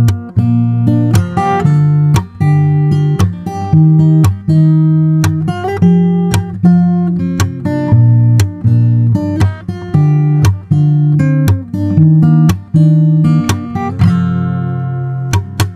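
Background music: acoustic guitar playing, with notes plucked and strummed in a steady rhythm.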